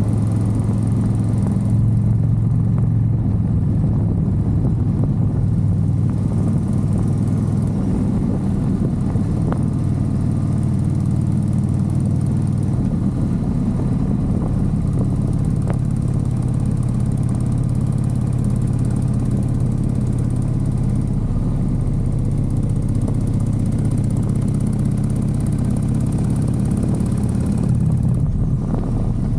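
Motorcycle engine running at a steady cruising pace while riding, its low hum holding nearly level throughout.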